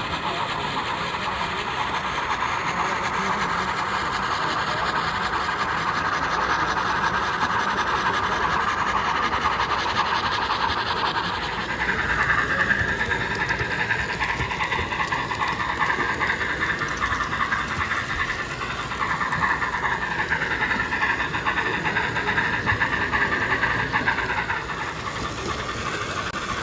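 Model Union Pacific steam locomotives running on a layout, with a steady steam hiss. From about twelve seconds in, a wavering higher tone glides up and down on top of it.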